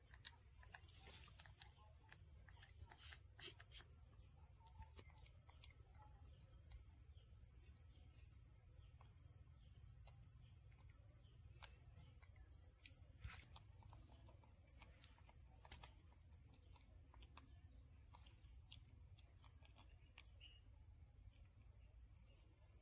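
Steady high-pitched drone of insects, with a few faint clicks over a low background rumble.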